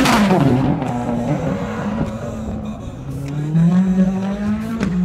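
RX3 rallycross car's turbocharged engine running hard. It is loudest at the start, its note sinking as it comes off the throttle, then rising again over the last second or so as it revs back up.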